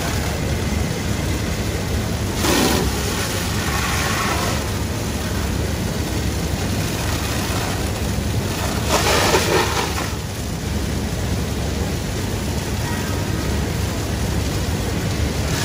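Fire hose stream spraying water into a cut-open hole in a garbage truck's body, a steady rushing hiss over a continuous low engine rumble. It swells into louder rushing surges twice, about two and a half seconds in and again around nine to ten seconds in.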